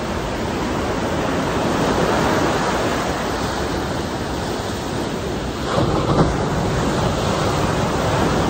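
Ocean surf washing and breaking against a rocky shore, with a louder wave crash about six seconds in, and wind rumbling on the microphone.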